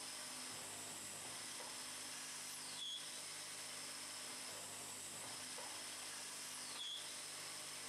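A 1988 German cam-controlled automatic lathe turning wooden beads from a wooden rod, its shaping knives cutting the wood with a steady high hiss. A short whistling sweep comes about every four seconds, twice, as the machine's cycle repeats.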